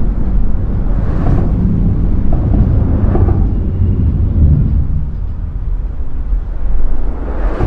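Lions Gate Bridge rumbling: a loud, deep, continuous low rumble through the bridge, swelling as vehicles pass about a second in, around three seconds in, and again near the end.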